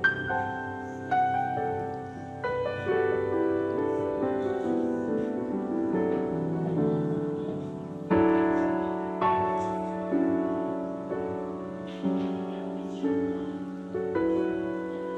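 Background piano music, notes and chords struck about once a second and left to ring and fade.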